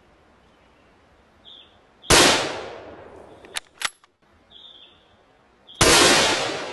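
Two gunshots about three and a half seconds apart, each ringing out and fading slowly, with two sharp clicks between them.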